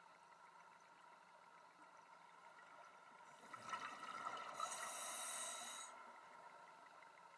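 Scuba diver breathing through a regulator underwater: a rush of bubbles about three and a half seconds in, then a louder hiss of air lasting just over a second that cuts off sharply.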